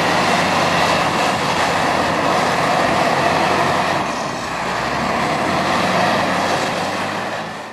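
Heavy machinery running steadily, a dense mechanical din that dips slightly about four seconds in and fades out at the very end.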